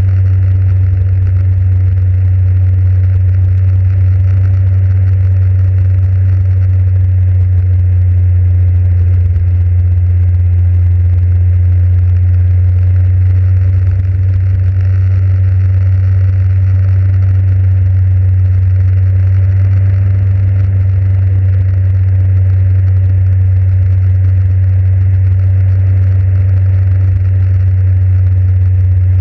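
Motorcycle engine running at a steady, even pace with a loud low hum, under a haze of wind and road noise.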